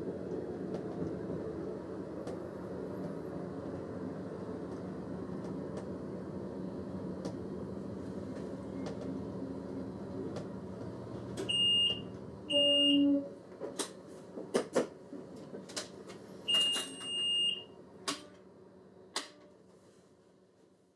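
Class 642 Desiro diesel railcar running and rolling to a stop, its steady hum easing off. About halfway through, a few short high electronic beeps from the driver's cab, one held for about a second, come amid sharp switch-like clicks.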